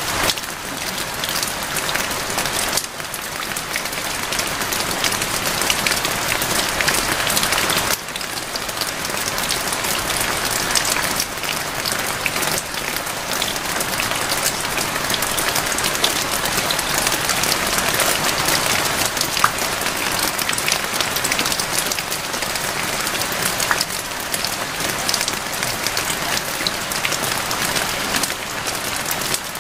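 Steady rain: a dense, even hiss peppered with many small drop ticks, dipping briefly about three and eight seconds in.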